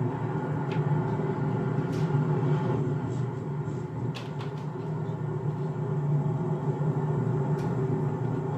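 Moving car's steady low road and engine drone, with a few faint clicks.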